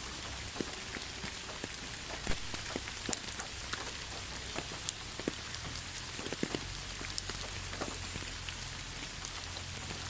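Rain falling steadily: a continuous hiss with many individual drops tapping sharply on a surface at irregular moments.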